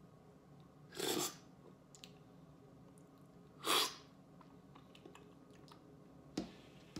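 Two loud slurps of hot black coffee sucked from a spoon, cupping-style, about two and a half seconds apart, each a brief hiss of air pulled in with the liquid. A small click near the end.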